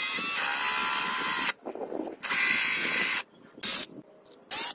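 Small brushless outrunner motor driving a homemade gear pump, whining in two runs of about a second and a half and about a second, its pitch stepping up early in the first run; two short rushing bursts follow near the end.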